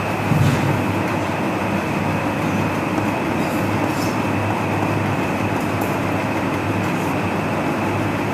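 Steady rumbling hiss of room noise, with a few faint scratches and taps of chalk writing on a blackboard.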